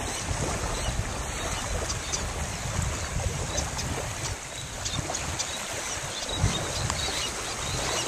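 Wind buffeting the microphone, an uneven low rumbling rush, with a few faint, short, high-pitched ticks scattered through the middle.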